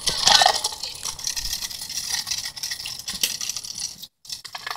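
Clicking and rattling while riding over cracked concrete, with handling noise from the phone held in hand; the sound cuts out briefly about four seconds in.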